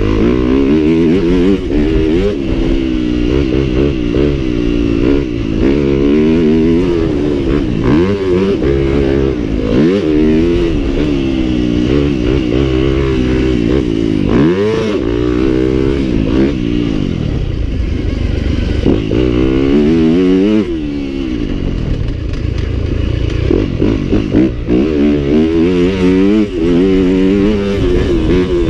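Yamaha dirt bike engine, heard from on the bike, revving up through the gears and backing off over and over as it is ridden hard around a motocross track. The pitch climbs and drops every second or two as the rider accelerates, shifts and rolls off.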